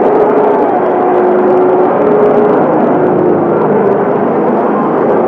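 John Deere tractor engine running hard under load as it churns through deep mud, with a steady droning tone.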